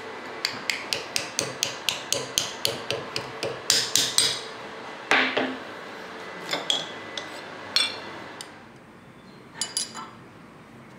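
Hammer tapping a copper sheet over a steel rod clamped in a vise, folding the copper around the rod: a quick, even run of light ringing blows, about three or four a second, then a few heavier blows and scattered lighter taps. Two faint metal clinks near the end.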